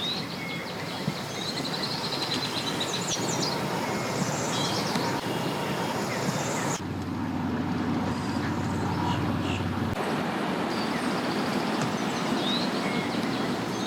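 Steady wind and vehicle noise, with small birds chirping now and then. The background shifts abruptly about seven seconds in and again near ten.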